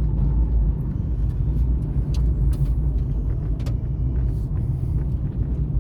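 A car's engine and tyres rumbling low and steady, heard from inside the cabin as it drives slowly along the roadside, with scattered light clicks and ticks.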